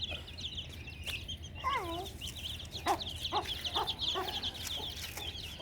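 A brood of chicks peeping rapidly and continuously in a high register, with a few lower clucks from the hen in the middle.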